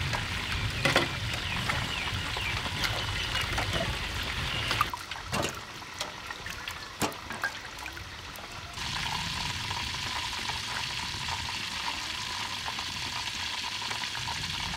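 Hands swishing lettuce leaves and cucumbers through water in a metal basin, splashing and sloshing with small knocks. After a quieter patch with a few clicks, a steady hiss sets in about two-thirds of the way through.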